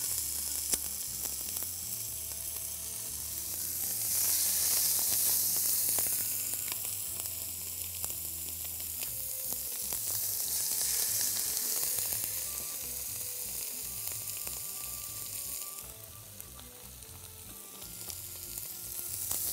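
Seasoned chicken thighs sizzling as they sear skin-side down in a hot pan. The sizzle swells each time another piece is laid in.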